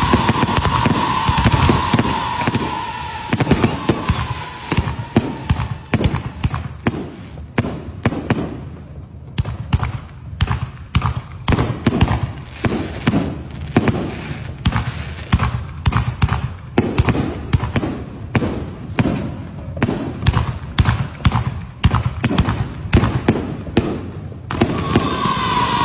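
Fireworks display: a ground fountain sends up a hissing, whistling jet for the first few seconds. Then a long run of sharp bangs from aerial shells follows at about two a second. Near the end a new fountain starts hissing and whistling again.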